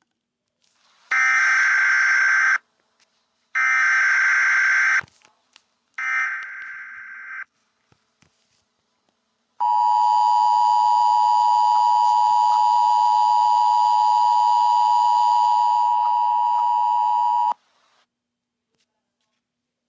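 Emergency Alert System header: three short bursts of warbling SAME data tones, then the steady two-tone attention signal held for about eight seconds before it cuts off.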